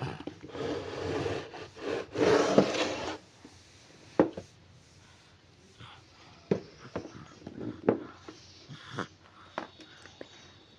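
Handling noises: a few seconds of rubbing and scraping, loudest about two seconds in, then a scatter of short knocks and clicks.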